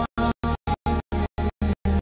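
Loud recorded dance music that cuts on and off about five times a second, with a brief silence between each short burst.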